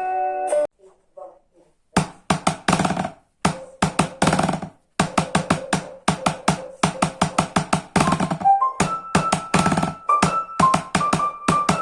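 A held keyboard chord cuts off under a second in; after a short pause a steady drum beat starts, and a keyboard melody comes in over it after about eight seconds.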